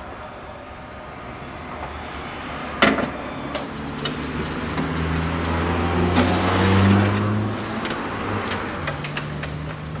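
Power fold-out ramp of a wheelchair-accessible minivan lowering and landing with a sharp clunk about three seconds in. Then a power wheelchair's electric drive motors hum as it drives down the ramp, loudest in the middle, with light clicks and knocks from the chair on the ramp.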